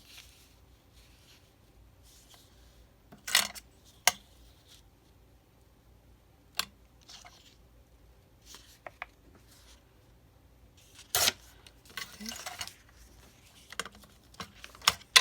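Intermittent paper handling at a craft table: brief rustles of cardstock and paper scraps, with a few sharp clicks and taps of small tools set down, the loudest click near the end.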